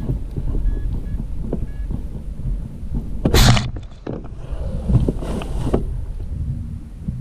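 Wind buffeting the microphone in a steady low rumble. A sharp hiss comes in about three seconds in, and a second, longer and softer hiss follows about a second later.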